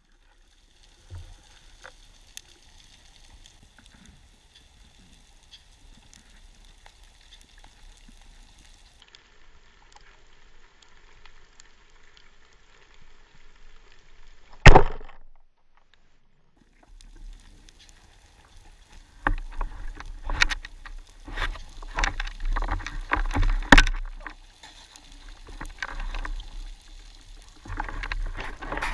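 Underwater sound of spearfishing: a steady faint water hiss, broken about halfway through by a single loud sharp crack of a speargun firing. Then a long run of loud irregular knocks, clicks and rattles with low water rumble as the speared fish and the spear are worked among the rocks.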